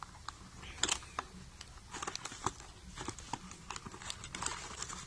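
Hands prying at a hair dryer's packaging box to get it open: irregular small clicks, taps and crinkles of the packaging, with one sharper click a little under a second in.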